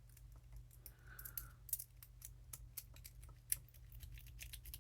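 Light, irregular clicking of a homemade pick, made from a disposable knife blade, working the pins inside a five-pin ISEO euro cylinder lock, with one louder click about three and a half seconds in.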